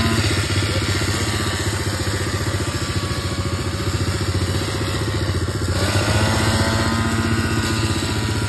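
Mini dirt bike's small petrol engine running at low speed with a fast, even pulsing note. The engine note rises slightly about six seconds in.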